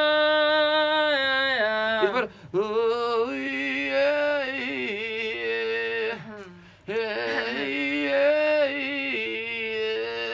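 A singer's voice holding long sung notes in three phrases, the pitch bending at the start and end of each. It is a vocal exercise in the vocal-fold 'crack/cracking' effect, with clean edgy tone and no false-cord distortion yet.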